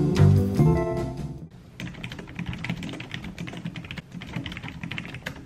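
Acoustic guitar music that cuts off about a second and a half in, followed by fingers typing quickly on a low-profile computer keyboard: a fast, irregular patter of key clicks.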